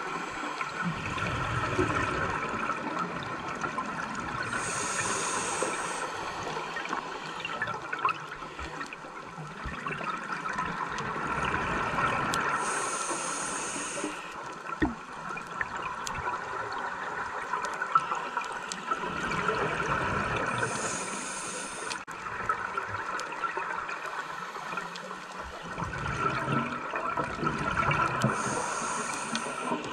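Scuba diver breathing through a regulator, heard underwater: a short hissing inhale about every eight seconds, four in all. Each is followed by a longer, lower rush of exhaled bubbles.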